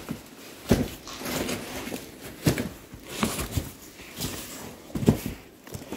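Cardboard boxes being handled and shifted, with several knocks and some rustling as they are moved about.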